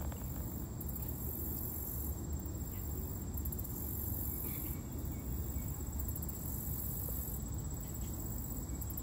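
Lakeside outdoor ambience: wind on the microphone as a steady low rumble, with high insect calls in the background that come and go every second or two.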